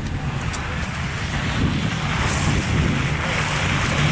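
Wind buffeting the microphone over a low rumble, growing noisier about halfway through.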